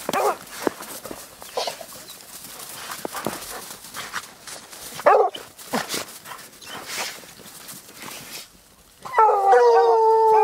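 Hunting hounds on a mountain lion track: a few short whines and yips, then about nine seconds in a hound opens up with a long, drawn-out bawl, the sign that the dogs have struck the scent.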